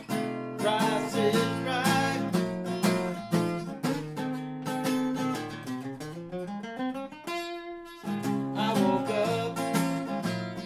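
Acoustic guitar strummed in a steady rhythm, with a man's singing voice over it in places and a run of rising notes about two-thirds of the way through.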